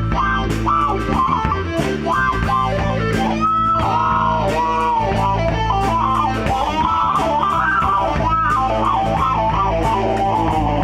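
Live rock band playing an instrumental break: electric lead guitar with bending notes over bass and drums.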